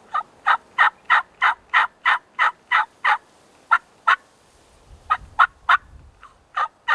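Turkey yelping: runs of short, evenly spaced yelps, about three a second, a long run of nine, then shorter runs of two, three and four.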